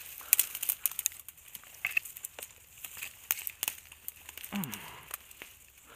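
Dry brush, twigs and dead grass crackling and snapping irregularly as a person pushes through them close to the ground.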